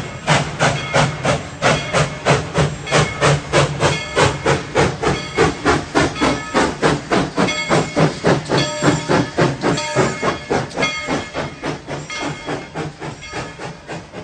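Steam locomotive working, its exhaust chuffing about three times a second with a hiss of steam, growing fainter over the last few seconds.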